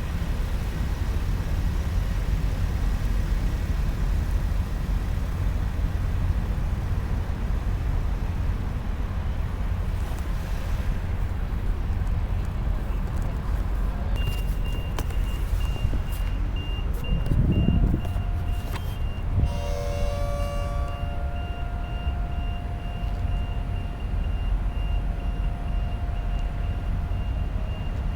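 Steady low rumble of motor vehicles, with a high, rapidly pulsing beep joining about halfway through, like a vehicle's reversing alarm.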